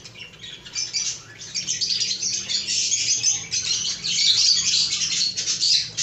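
A flock of caged lovebirds chattering, a fast, overlapping stream of high-pitched chirps and squeaks that grows louder about a second and a half in.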